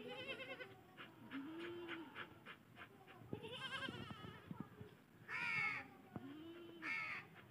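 Goats bleating faintly, several short wavering calls spread apart, the clearest about five and a half seconds in, with a few faint clicks between them.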